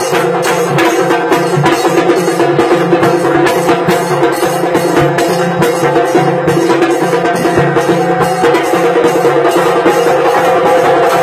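Trinidadian tassa drum ensemble playing live: loud, fast, steady rhythm of stick strokes on tassa drums over a bass drum.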